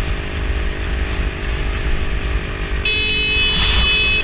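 Motorcycle engine running under the rumble of riding wind. About three seconds in, a loud high-pitched squeal starts and holds.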